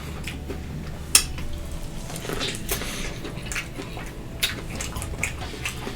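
Close-miked eating and food handling: scattered sharp clicks and smacks, with the loudest about a second in and several more after halfway, over a low steady hum.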